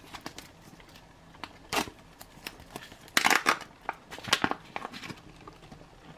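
A packaged tomato soup pouch being handled and opened: crinkling and rustling of the packaging with sharp little clicks, in a few louder bursts about two, three and four seconds in.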